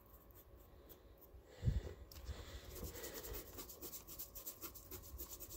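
Faint scratchy strokes of a paintbrush dabbing acrylic paint onto a sculpted polymer-clay piece, with one dull low thump about a second and a half in.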